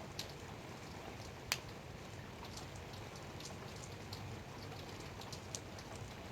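Light rain falling: a steady hiss with scattered individual drops striking close by, one louder drop about a second and a half in.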